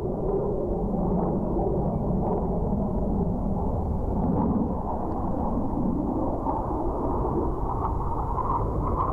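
Four Blue Angels F/A-18 Hornets flying overhead together, their jet engines making a steady low rumble that grows a little brighter toward the end.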